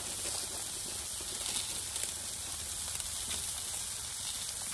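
Omelet egg sizzling steadily on a hot Blackstone flat-top griddle.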